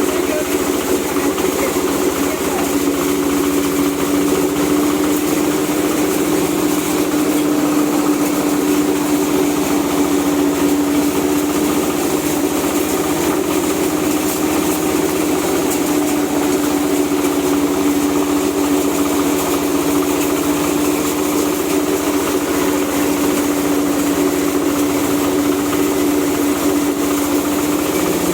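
Dry-coffee huller machine running steadily on test, its drive giving a constant hum with one strong held tone that does not change.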